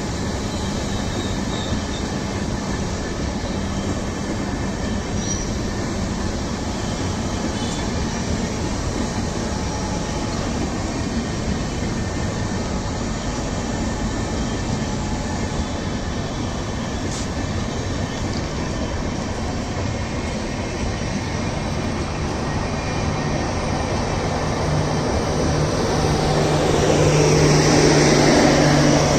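A long rake of LHB passenger coaches running past at speed: a steady rushing rumble of wheels on rail. Near the end it grows louder and a low steady hum comes in.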